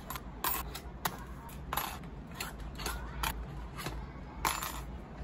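Small metal retaining clips being pulled out of a picture frame's back and dropped onto its hardboard backing: a run of about eight sharp, light metallic clicks at an uneven pace, the loudest near the end.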